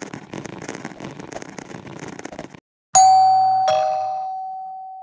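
About two and a half seconds of rough, noisy sound, then a two-note doorbell chime, ding-dong: a bright note about three seconds in and a lower one just after, ringing on and slowly fading.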